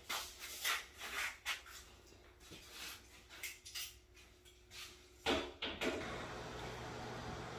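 Intermittent short scrapes and rubs, with a louder pair about five seconds in, followed by a steady low hum.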